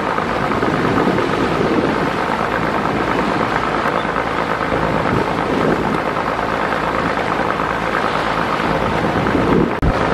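Steady loud rushing noise of wind and rough water around a river launch, dropping out for a moment near the end.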